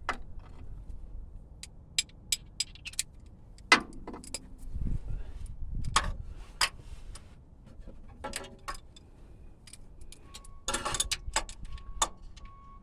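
Irregular sharp metallic clicks and clinks of a hand tool being worked on a motor mount bolt in a cramped space, with a few louder knocks and a short rattle near the end.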